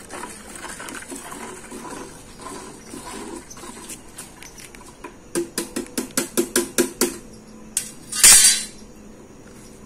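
A stick stirring dissolved chlorine in a small plastic bucket of water. Quiet sloshing and clatter give way to a quick run of about a dozen knocks against the bucket, then one short, loud rush of noise near the end.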